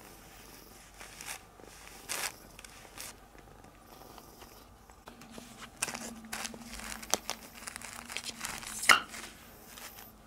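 Crinkly plastic food packaging being handled and crumpled, in scattered crackling bursts, with a sharp crackle about nine seconds in. A faint steady hum joins about halfway through.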